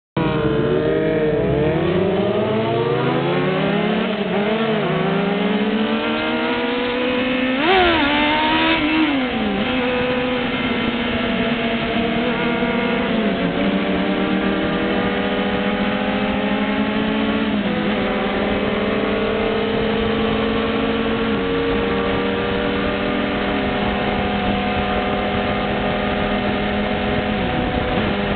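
Motorcycle engine heard from on board the bike. For the first few seconds it revs up in steps through several gear changes, with a brief louder rev about eight seconds in. After that it runs steadily at cruising speed, with a few short dips.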